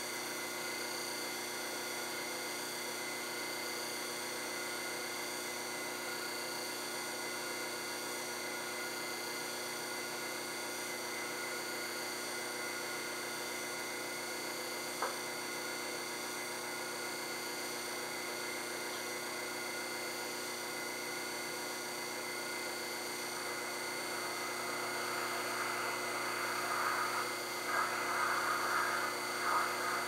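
Taig benchtop metal lathe running steadily, a whine of several fixed tones. One sharp click about halfway through, and a louder, rougher rasping noise builds over the last few seconds.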